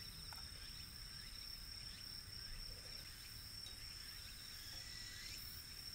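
Insects trilling steadily on one high pitch, with a few short rapid chirps from another insect, over a faint low outdoor rumble.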